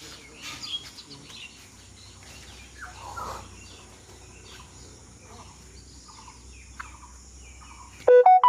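Birds chirping over a steady high hiss of insects. About eight seconds in this cuts off suddenly and a loud electronic tune begins.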